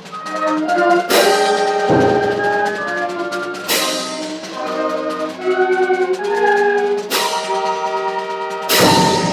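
Instrumental music with brass and drums, cut by four loud crashes.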